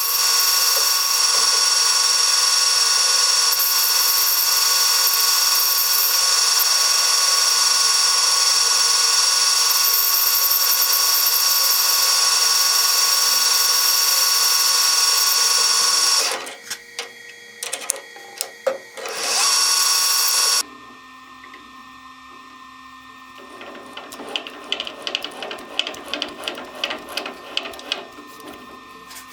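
An electric machine-tool motor running steadily with a high whine. It drops out, comes back briefly and stops, leaving quieter, fast irregular ticking near the end.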